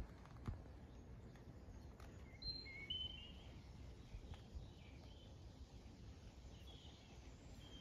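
Quiet outdoor background with a few short, faint bird chirps, the clearest about two and a half to three seconds in.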